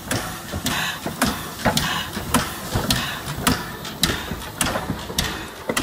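Steam tank locomotive No. 24, an LSWR O2 class 0-4-4T, moving slowly at close range: regular chuffs with sharp clanks from the wheels and motion, just under two beats a second.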